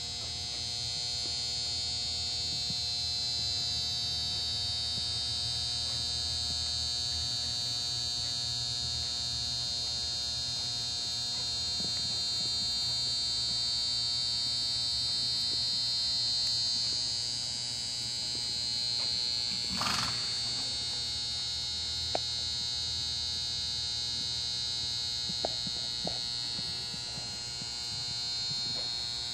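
Steady electrical hum with a high-pitched whine over it, unchanging throughout, with one brief rushing noise about twenty seconds in and a few faint clicks after it.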